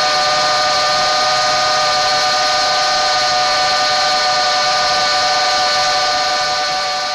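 Small FPV racing quadcopter's brushless motors (EMAX RS1306 3300kv) spinning 3-inch propellers at steady throttle: a loud whine of several steady tones over a high hiss, starting to fade near the end.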